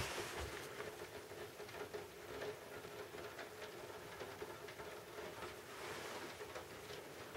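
Quiet room tone: a faint steady hum with light rustling and small ticks.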